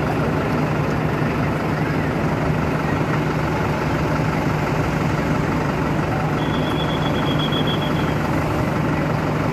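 A bus engine idles steadily with a constant low hum. A faint, rapid beeping comes in for a couple of seconds about two-thirds of the way through.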